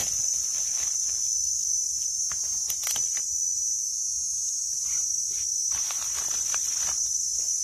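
Steady high-pitched insect chorus. A few faint dry-leaf rustles and light clicks come near the middle as a hand works through the leaf litter.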